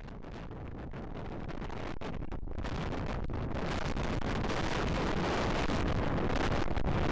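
Wind buffeting the camera microphone: a steady rushing, rumbling noise that grows gradually louder, with brief dropouts.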